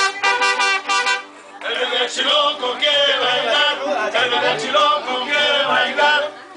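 Mariachi band playing, with violin and guitars; a phrase ends about a second and a half in, then singing comes in over the band.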